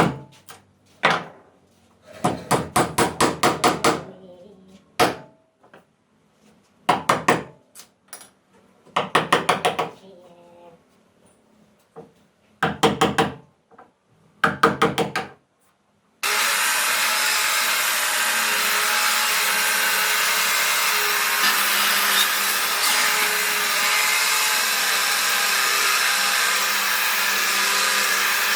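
Several short runs of quick knocks on wood, like rapid hammer taps, each run lasting about a second. About sixteen seconds in, a woodworking power tool starts abruptly and runs steadily.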